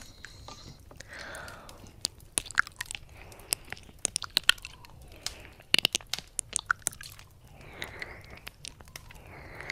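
Close-up ASMR 'ear eating' mouth sounds on a 3Dio binaural microphone's ear: a dense run of sharp wet clicks and smacks from lips and tongue, with softer breathy mouth noise around them.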